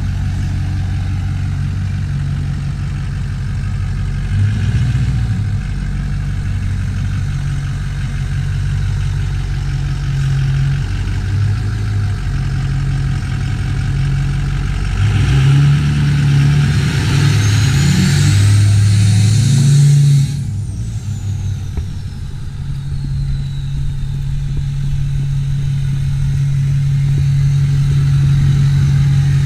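A 2005 Ford F-250's 6.0 Powerstroke V8 turbo diesel running through a 5-inch turbo-back exhaust as the truck takes off, engine pitch stepping up and down. About halfway through a loud turbo whistle rises in pitch, then after a sudden drop it winds down in pitch over a few seconds while the engine settles to a steady run.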